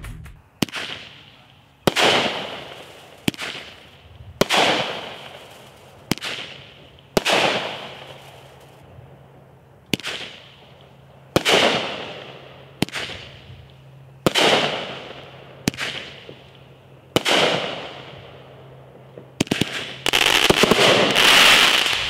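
Legend Fireworks Hit Team 200-gram cake firing: about six shots, each a sharp launch pop followed a second or so later by a louder break that fades out over a second or two. Near the end it goes into a dense crackling finale of mines.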